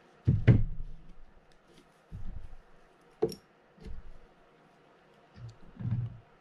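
Hand tools and metal reel parts handled and set down on a paper-covered workbench: a series of dull thumps and knocks, the loudest near the start, with one sharper click a little past three seconds.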